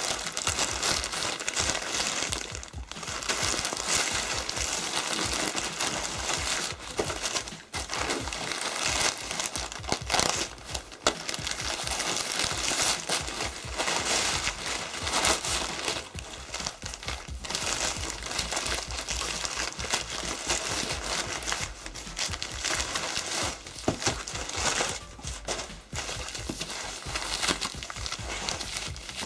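Shipping packaging crinkling and rustling as it is handled and opened by hand, with dense irregular crackles.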